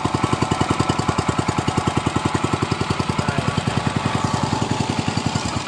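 Small air-cooled 4 HP Mitsubishi petrol engine running with a steady, rapid putter. It is belt-driving a car supercharger that serves as the air blower of a seafood oxygen aerator.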